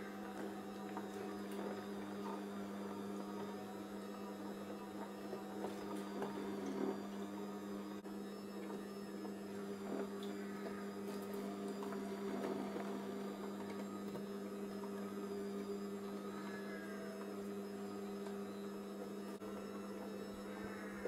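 Electric juicer motor running steadily with a low, even hum while pineapple is pressed into juice, with occasional faint knocks.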